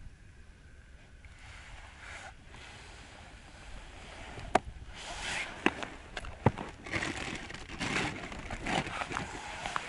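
Handling noise from a small caught fish taken off the line over an ice hole: a few sharp ticks about halfway through, mixed with bursts of clothing and hand rustling, after a quiet first few seconds.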